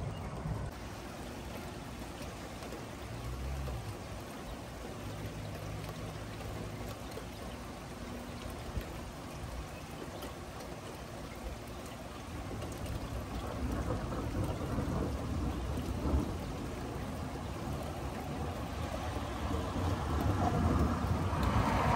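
Steady rain falling, with low thunder rumbling under it that grows louder in the second half.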